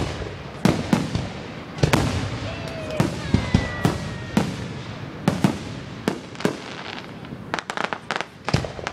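Aerial fireworks bursting: sharp bangs one after another at an uneven pace, with crackling between them and a quick volley of bangs near the end.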